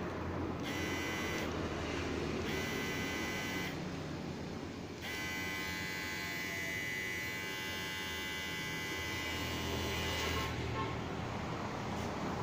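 Enchen Hummingbird cordless hair clipper running: a steady motor hum with a higher buzzing whine that comes in three stretches, two short ones in the first four seconds and a longer one from about five to ten seconds in.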